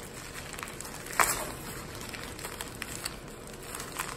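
Packaging wrap being handled, with soft rustling and small crackles and one sharper crinkle about a second in.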